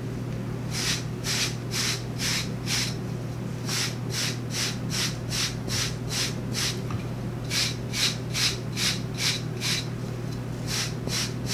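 Hairbrush bristles swept over short hair in quick strokes, about three a second, in runs broken by short pauses.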